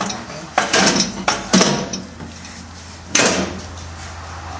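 A series of metal clunks and scrapes as the loosened steel exhaust pipe is shifted and slid out from under the car: four quick knocks in the first second and a half and another about three seconds in, over a low steady hum.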